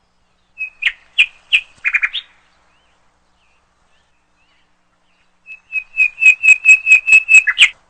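Bird chirps: a short run of sharp, high chirps, then after a pause a longer run of about ten evenly spaced chirps, roughly four or five a second.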